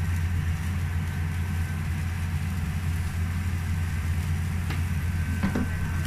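Steady low rumble of a gas stove burner running on high under a pan of broth, with a faint steady high whine. A couple of light clicks come near the end.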